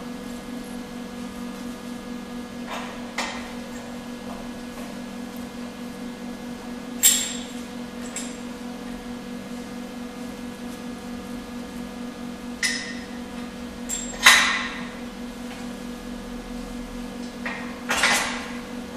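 A handful of sharp metal knocks and clinks, spaced a few seconds apart and loudest about three-quarters of the way through, as steel parts of a tube bender's ram mount are worked into line. Under them runs a steady low machine hum.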